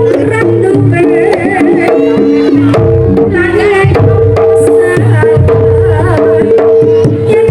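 Javanese jaranan music played loud: a steady run of hand-drum strokes under held and wavering melodic tones.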